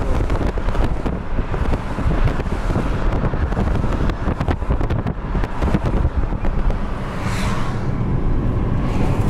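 Road and tyre noise of a moving car heard from inside, with wind buffeting the microphone as a steady rumble broken by crackles. A brief swell of hiss rises and falls about seven seconds in.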